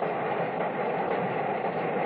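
New York Central Hudson-type (4-6-4) steam locomotive running at speed: a steady roar of exhaust and running gear with no separate beats. Heard through an old film soundtrack that cuts off the high end.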